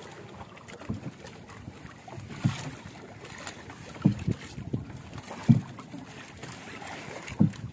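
Irregular dull thumps and knocks on a small wooden outrigger fishing boat over a low steady wash of water and wind, while a gill net is hauled aboard and fish are picked from it. The loudest knocks come about four and five and a half seconds in.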